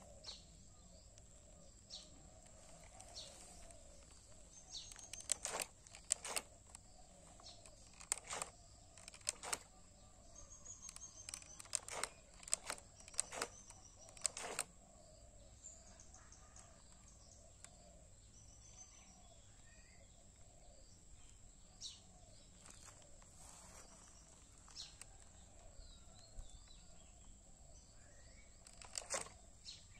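Quiet outdoor ambience with small birds chirping now and then, broken by many sharp clicks that come in clusters, most in the first half and again near the end.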